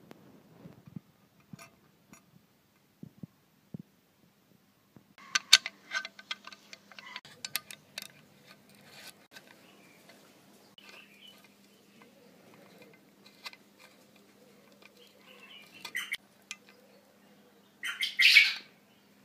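Small metal parts clicking, tapping and scraping as a supercharger housing is assembled by hand. A cluster of sharp clicks comes a few seconds in, and a louder scrape follows near the end as a steel sleeve is seated in the housing.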